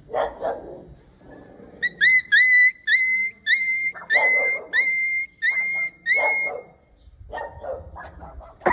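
Dog-like yelps and barks: a fast run of about ten short, high-pitched yelps, each rising quickly and then holding, about two a second, mixed with lower barks, then a few lower barks near the end.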